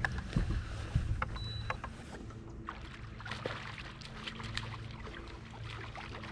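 A crappie being landed and handled in a fishing boat: scattered light clicks and knocks over a steady low hum.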